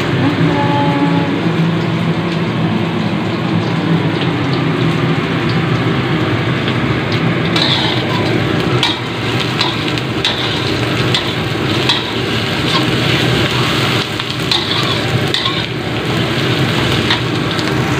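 Sliced onions sizzling in hot oil in a wok, stirred with a metal spatula. The spatula scrapes and clicks against the wok again and again in the second half.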